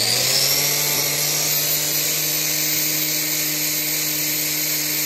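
Angle grinder with a hoof-trimming disc running at steady speed after spinning up at the start, its disc grinding down a cow's claw to flatten it so a block can be glued on.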